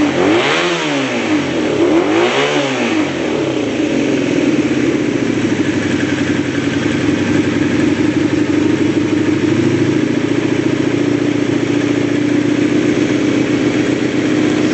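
Honda VF500F Interceptor's V4 engine revved with two quick blips of the throttle in the first few seconds, each rising and falling in pitch, then settling into steady running at an even pitch.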